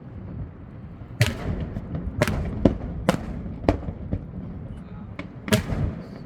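Aerial fireworks bursting: about six sharp bangs at irregular intervals, the first a little over a second in and the last about a second before the end, with a low rumble between them.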